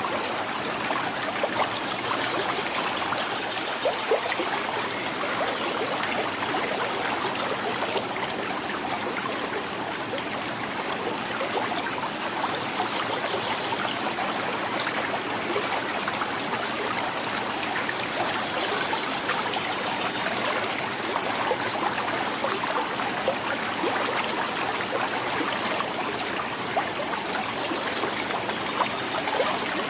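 A small river flowing and gurgling over rocks, a steady rush of water with many small splashes and trickles.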